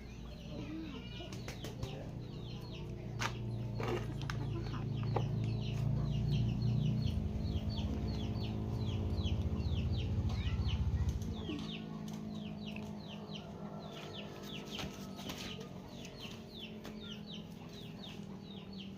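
Chickens and chicks peeping in a rapid run of short, high, falling cheeps. Under them a low steady rumble swells and then drops away about eleven seconds in.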